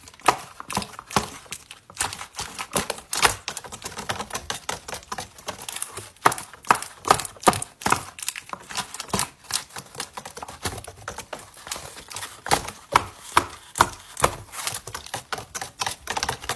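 Paper dragon puppet's jaws worked open and shut, a fast, irregular run of dry paper clacks and taps.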